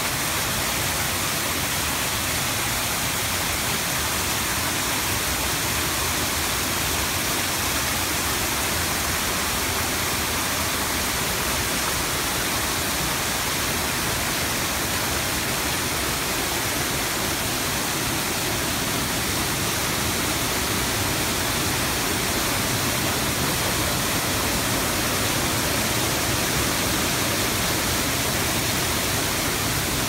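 Small waterfall pouring over a rock face into a shallow pool on a pebble bed, a steady, even rush of falling water.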